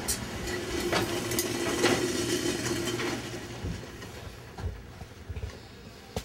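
Enamel kettle on a lit gas burner, a steady hiss for about three seconds, then a few light metal clinks and knocks as the kettle is lifted off the stove by its wire handle.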